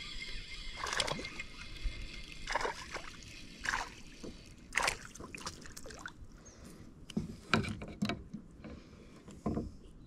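Water splashing and sloshing as a small crappie is reeled up to the side of a kayak and swung out of the water, a string of short, sharp splashes and knocks about once a second, the sharpest about seven and a half seconds in.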